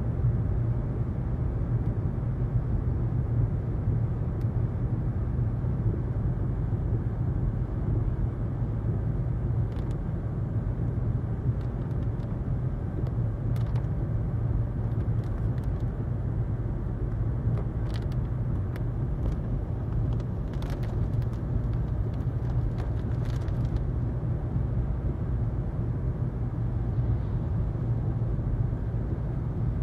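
Steady low rumble of a car's engine and tyres, heard from inside the cabin while driving along a road. A few faint clicks are scattered through the middle.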